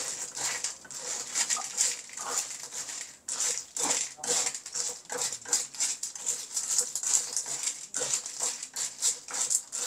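Snails being stir-fried in a pan: their shells clatter and a spatula scrapes among them in quick, irregular clicks, over a faint sizzle.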